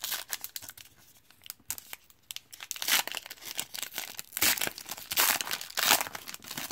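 Wrapper of a 2017 Panini Classics football card hobby pack being torn open and crinkled as the cards are pulled out: a run of crackling rips, loudest from about three seconds in until near the end.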